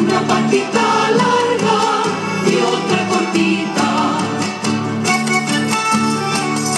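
Music for the Chilean gato folk dance: a song with singing over strummed guitar, in a steady rhythm.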